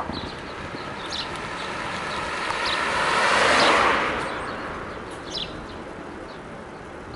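A vehicle passes by, its noise swelling to a peak about halfway through and then fading away, while small birds chirp.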